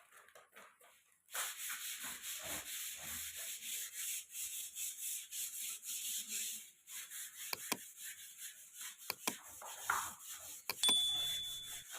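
Electric wall putty sander's abrasive pad rubbing over a puttied wall: a steady, gritty hiss that starts about a second in, drops out briefly near the middle, then carries on with a few sharp clicks in the later half.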